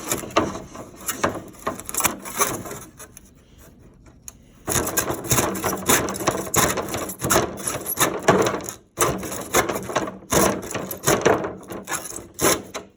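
Hand saw cutting through wood in rhythmic back-and-forth strokes, its kerf held open by a screw wedged in behind the blade so it doesn't bind. The strokes are lighter for the first few seconds, then louder from about five seconds in, and stop just before the end.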